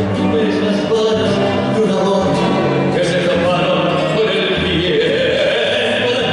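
Argentine folk song playing, with a man singing over instrumental accompaniment.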